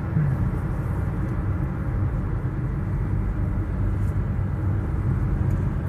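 Steady low rumble of a moving car heard from inside its cabin: engine and tyre road noise while driving on a winding paved road.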